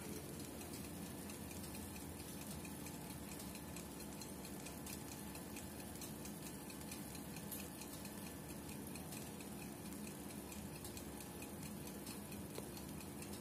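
Faint, regular ticking over a steady low hum of room tone.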